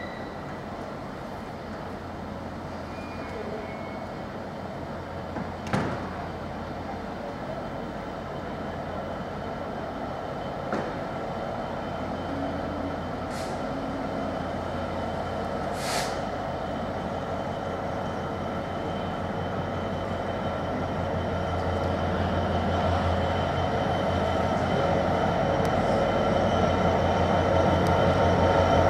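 Train drawing near on a railway line, its hum with several high whining tones growing steadily louder throughout. A few sharp clicks sound along the way, the loudest about six seconds in.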